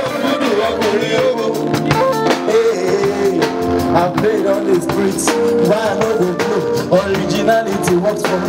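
Nigerian Afropop song in a stretch without lyrics: a steady drum beat under held keyboard chords and a moving melody line.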